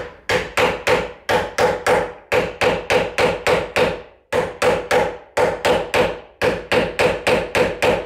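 Claw hammer tapping the top of a Ryobi door latch installation tool, driving its blades into the edge of an interior door to cut the outline of the latch recess. Quick blows about three a second, in four runs with short pauses, each with a brief ring.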